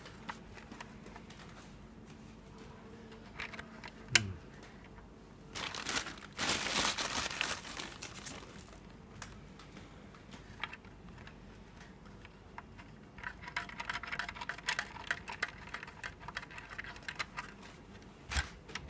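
Hands fitting small metal bolts and a knob into black plastic parts: scattered clicks and light taps of parts and hardware, with a stretch of plastic crinkling about six to eight seconds in.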